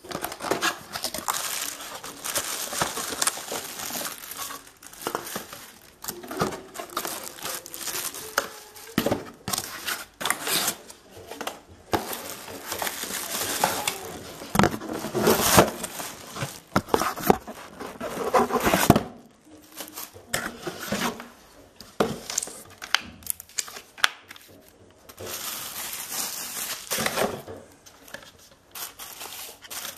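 Cardboard box and plastic wrap handled during unpacking: irregular rustling, scraping and crinkling of cardboard flaps and plastic bags. It is loudest and busiest about halfway through, then quieter for a few seconds.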